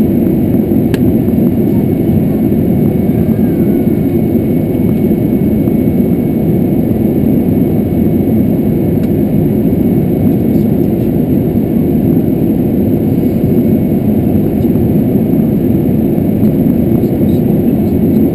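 Steady aircraft cockpit noise while taxiing: an even low rumble of the engines and airflow, with a thin high whine over it.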